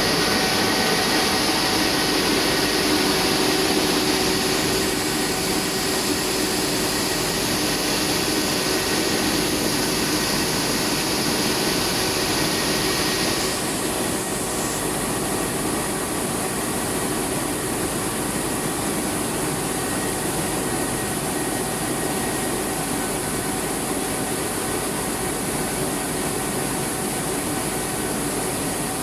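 Rice milling plant machinery running: a steady mechanical whir and hum with a few constant tones over it. About halfway through, the high hiss drops off and the machines carry on a little quieter.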